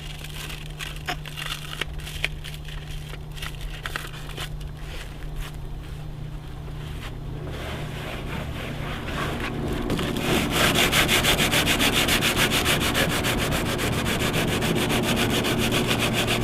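Sandpaper being rubbed on a fiberglass canoe hull, roughing up the surface around a hole so the resin patch will stick. The strokes are uneven scratches at first, then from about ten seconds in they turn into fast, steady back-and-forth sanding and get louder.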